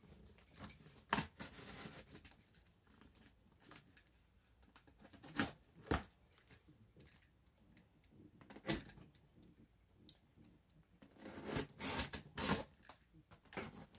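A heavily taped cardboard shipping box being cut open: scissors and a box cutter working through packing tape, with cardboard flaps rustling and scraping in scattered short, sharp bursts, busiest and loudest near the end.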